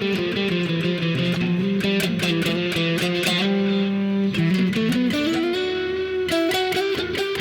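Electric guitar played through an overdrive pedal and an amp simulator, direct with no amplifier. Quick picked notes and held notes, with one note bent or slid upward about four and a half seconds in.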